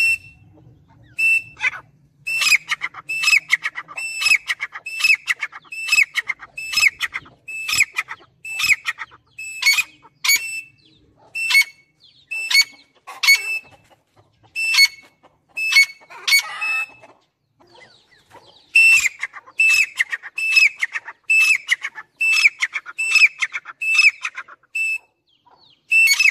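Grey francolin calling in a long series of sharp, repeated notes, about one and a half a second. Near two-thirds of the way through the calls pause briefly, then resume.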